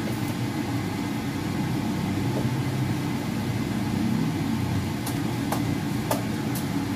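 Knife slicing raw lamb chops on a plastic cutting board, with about four sharp clicks in the second half as the blade meets the board. A steady low mechanical hum runs underneath.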